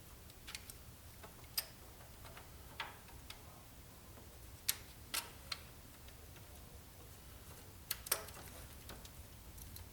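Scattered light clicks and taps of tools and engine parts being handled, about eight in all and irregularly spaced, the loudest pair near the end.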